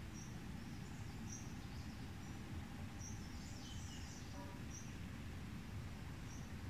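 Faint outdoor ambience: a small bird gives short high chirps about every second and a half, with a few other brief calls in the middle, over a low steady background rumble.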